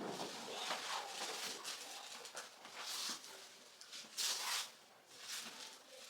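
Soft rustling and shuffling of a person settling face down onto a padded chiropractic table, with a few short breathy or fabric-like swishes, the loudest about four seconds in.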